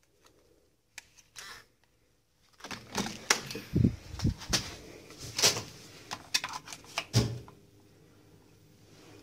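Clicks and knocks of a hotel room door being unlocked with a key card and opened, and of the card being slotted into the room's wall card holder, with a few heavy thumps among them.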